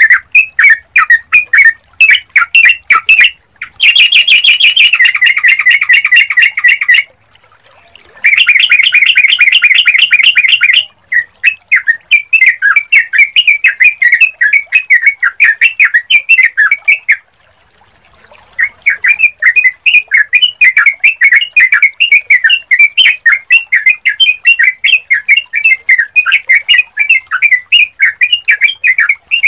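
Yellow-vented bulbul (trucukan) calling: runs of rapid, repeated bright chirps, with two stretches of dense continuous chattering a few seconds in and short pauses between the runs.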